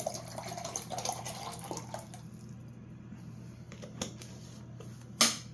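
Water being poured into a container, trickling and dripping for about two seconds, then a few faint drips and ticks. Near the end comes one loud clatter.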